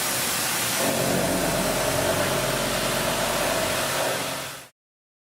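Steady mechanical running noise, a hiss with a hum that comes in about a second in, fading out near the end.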